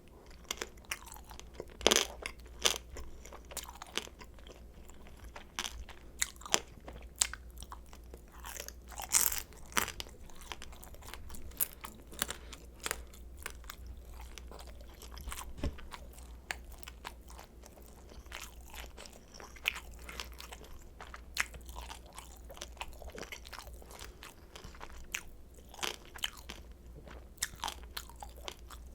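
Chewing and crunching on crispy pan-fried kimchi dumplings: a loud crunchy bite about two seconds in, then irregular crunching and chewing, with sharper crunches now and then.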